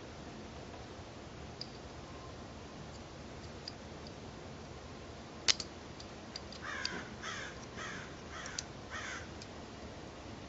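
A sharp metallic click as the steel coupling plunger and spring are pressed into a Mauser C96 locking frame, with a few faint ticks of small parts around it. About a second later a bird gives a run of about six short, harsh calls in quick succession.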